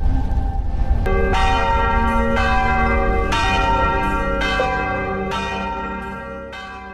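Church bells ringing, a new stroke about once a second, dying away toward the end.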